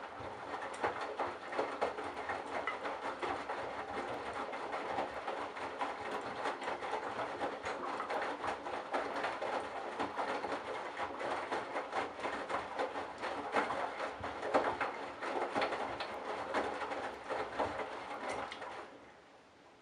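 Candy Bianca washing machine drum turning, tumbling a load of towels and a bathrobe with a steady churning rattle, then slowing to a stop near the end.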